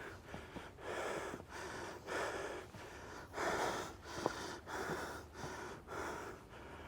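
Heavy, rhythmic breathing of a hiker climbing a steep uphill trail: hard breaths in and out about once a second, with a few faint ticks of footsteps between them.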